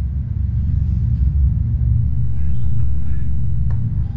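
A deep, steady rumble of flames from an anime soundtrack's fire sound effect, swelling slightly midway, with music underneath.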